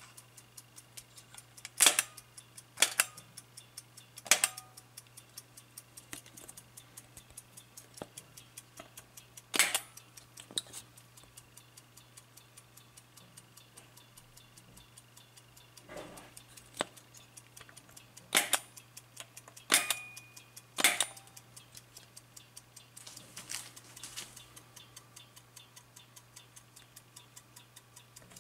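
Mechanical movement of an AChS-1 Soviet aircraft cockpit clock ticking rapidly and evenly, with several much louder sharp clicks as its knobs are pressed.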